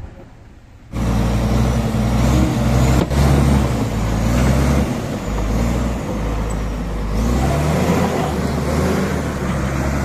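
Crawler bulldozer's diesel engine running hard close up while it pushes soil with its blade, a loud steady drone that comes in about a second in; its note shifts a little about seven seconds in.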